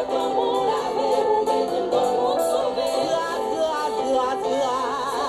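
Music: several voices singing together, a choir with wide vibrato on held notes.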